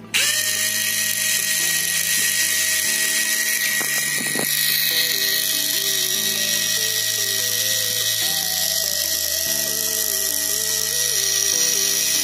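Four small brushed DC motors geared together as a miniature V4 engine, switched on from a battery: they start suddenly and spin up into a steady, high electric whine with a hiss of brush and gear noise.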